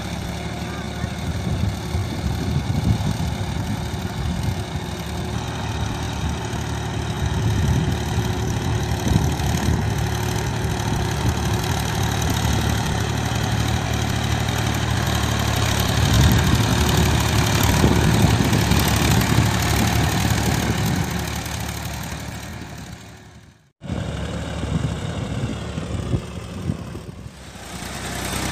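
Mahindra 275 DI tractor's three-cylinder diesel engine running steadily under load, pulling a cultivator. About four-fifths of the way through, the sound fades away to nothing and then cuts straight back in.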